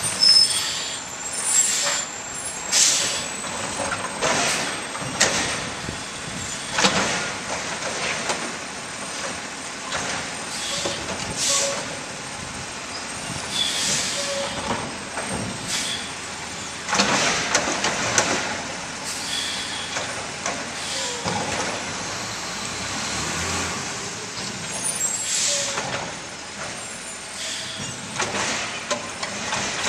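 Labrie automated side-loader garbage truck working the curb: its engine running, air brakes hissing, and the arm lifting and tipping carts with repeated clanks and bangs.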